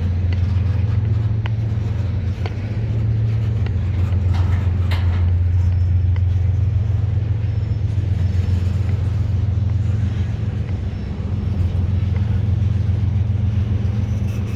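A steady, low engine drone, holding the same pitch throughout, with a few faint clicks over it.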